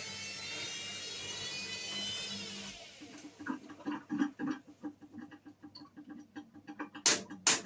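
Washing machine drum motor running with a high whine after new carbon brushes have been fitted; the whine dips and stops about three seconds in. Irregular light knocking follows, then two sharp clicks near the end.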